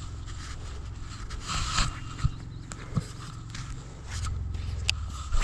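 Handling noise from an angler moving with a fishing rod: a low rumble of rubbing on the camera's microphone, with a few sharp clicks and a brief scrape about a second and a half in.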